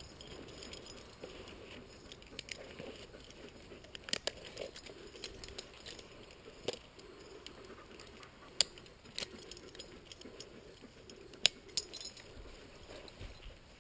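A handful of sharp, separate metallic clinks and clicks from the dog's rappel harness hardware, the two loudest in the second half.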